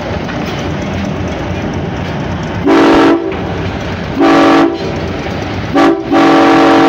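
Air horn of a GE 80-ton center-cab diesel switcher sounding the grade-crossing signal: two long blasts, a short one, and a final long one, each a chord of several notes. The locomotive rumbles steadily underneath as it rolls toward the crossing.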